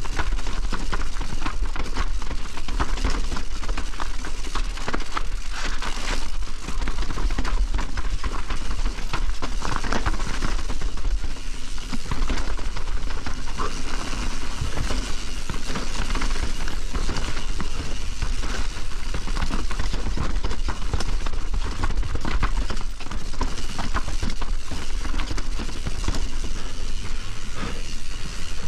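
Privateer 161 enduro mountain bike riding hard down a wet, rough trail: a constant dense clatter of chain slap, suspension and frame knocks, and tyres over roots and stones, over a steady low rumble.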